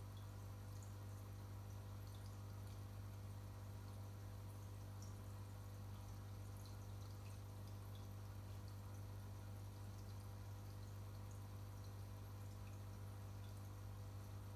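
Saltwater aquarium equipment running: a steady low hum with faint, scattered water drips and bubble ticks from the filter and air stones.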